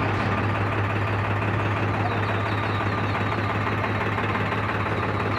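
New Holland 5510 tractor's diesel engine running steadily at constant speed with a steady low hum.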